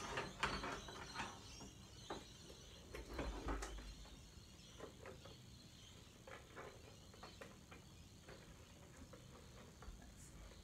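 A leather satchel and its leather strap being handled: faint rustles and light clicks, busiest in the first few seconds, then only scattered clicks.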